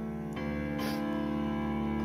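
Background music with sustained held notes, and a couple of brief clicks about half a second and a second in.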